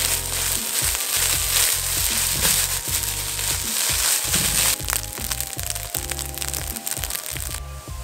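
Egg fried rice sizzling and crackling in a nonstick wok as a spatula stirs and tosses it, with scraping strikes against the pan, over background music. The sizzle thins out about five seconds in and mostly stops near the end.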